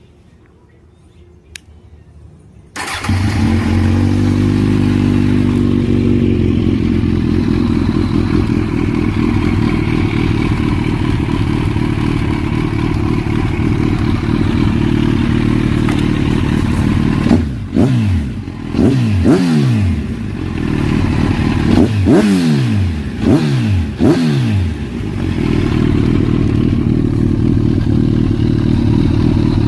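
Kawasaki Z1000 inline-four motorcycle engine starting about three seconds in and settling into a steady idle. It then gets a series of quick throttle blips, each revving up and falling back, before idling again.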